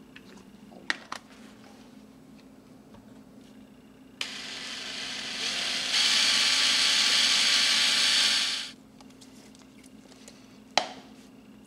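Cordless drill spinning a drill bit to stir epoxy resin in a drinking glass: it starts about four seconds in, gets louder as it speeds up about halfway, and stops a few seconds later. A couple of light knocks come before it and one sharp knock near the end.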